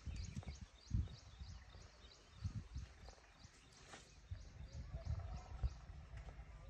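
A bird calling with a short high note repeated evenly, about three times a second, over irregular low rumbling thumps.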